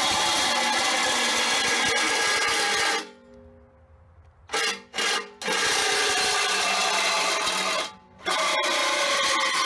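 DeWalt reciprocating saw cutting through a rusty steel channel, the blade rasping against the metal over the motor's steady run. It stops suddenly about three seconds in, blips twice, runs on again, and pauses once more briefly near the end before starting up again.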